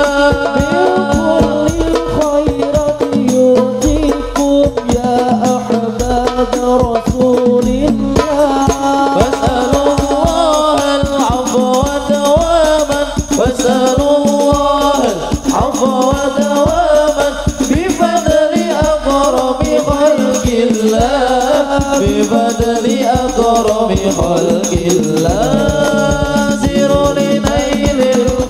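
Male voices singing an Arabic sholawat through microphones in long, ornamented, wavering lines, with several singers joining in. Rebana frame drums beat a dense, steady rhythm underneath.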